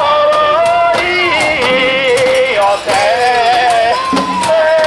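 A man singing a drawn-out festival song, long held notes that bend slowly in pitch, with a few sharp clacks now and then.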